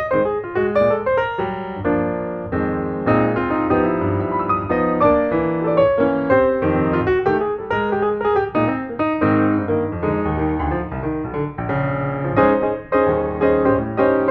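Background piano music, a run of quick notes over sustained chords.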